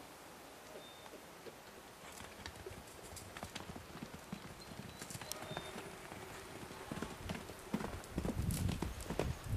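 Hoofbeats of a yearling Quarter Horse colt on packed dirt, faint at first, then quickening into a gallop. They grow louder and heavier near the end as the colt runs close by.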